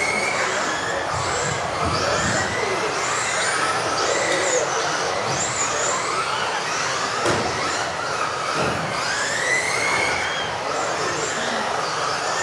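Several electric off-road RC cars racing together, their motors whining up and down in pitch as they accelerate and brake, with one sharp knock about seven seconds in.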